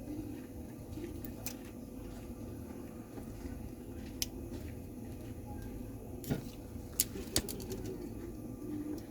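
A few short, sharp clicks of a phone and its small parts being handled on a workbench, over a low steady background hum.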